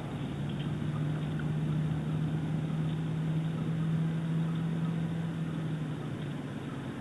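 Distant motor hum, one steady low tone that sets in about half a second in and fades out near the end, over a steady rushing background noise.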